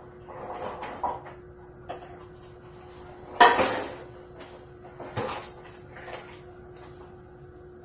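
Hands working raw shrimp under a thin stream of tap water at a kitchen sink, with several short knocks and clatters against the sink and a plastic tray. The loudest comes about three and a half seconds in. A steady hum runs underneath.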